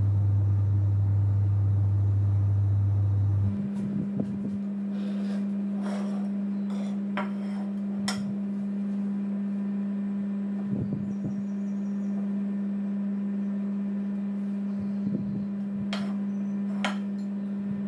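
A steady low hum, with light clinks and taps of ceramic plates being handled on a wooden table. About three and a half seconds in, the hum jumps up in pitch and drops slightly in level.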